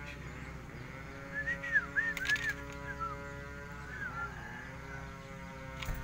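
A caged songbird calls a quick series of short, arched chirps about a second in, with a brief rattle of wings or cage partway through and one more chirp about four seconds in.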